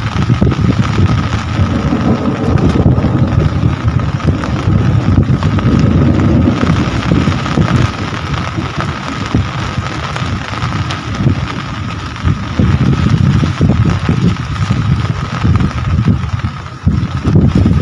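Steady rain falling, with a gusting low rumble of wind buffeting the microphone and a faint steady high tone behind it.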